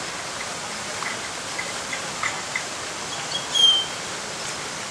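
Steady rush of falling water from a garden fountain, with a bird's short chirps about a second in and one clear whistled note near the end.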